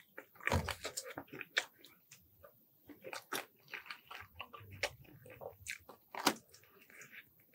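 Close-miked eating of fried chicken coated in spicy red sauce: a series of bites with crisp crunches from the fried coating, then chewing. The loudest crunch is about half a second in, with another strong one about six seconds in.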